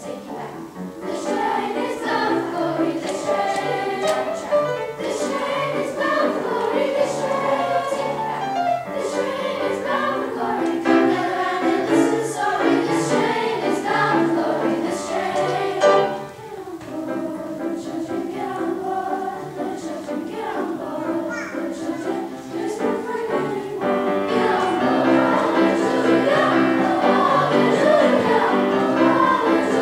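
Mixed youth choir singing in parts with piano accompaniment. The level dips briefly about halfway through, then the singing grows fuller and louder near the end.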